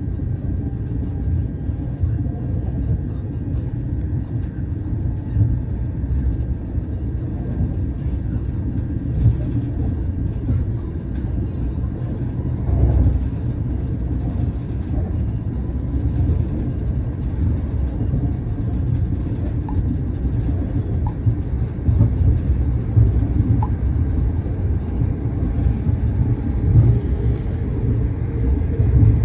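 Steady low rumble of a c2c electric train running at speed, heard from inside the carriage, with a faint steady whine above it.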